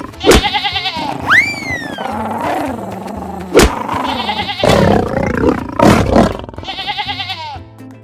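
Cartoon soundtrack of a lion roaring and sheep and goat bleating over background music. It is punctuated by a swooping whistle effect early on and a sharp hit a little before halfway.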